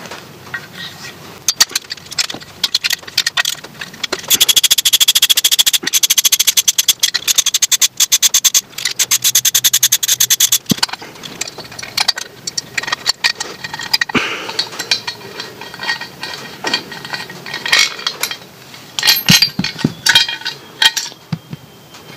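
Socket ratchet clicking in quick even runs from about four seconds in to about eleven seconds as the cylinder-head bolts of a Victa mower engine are undone, then scattered metal clinks and scrapes as the loose bolts, socket and head are handled.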